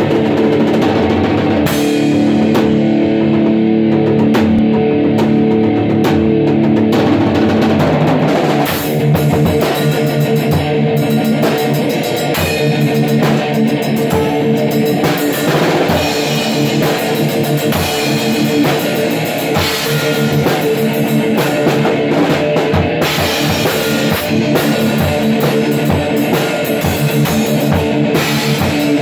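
Electric guitar jamming freestyle in a rock style over a steady drum-kit beat.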